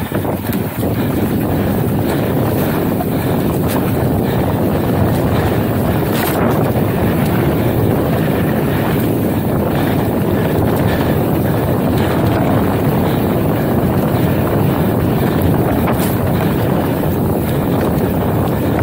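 Wind rushing over the microphone and mountain bike tyres rolling over sandy dirt, a steady loud noise with a couple of sharp knocks from the bike.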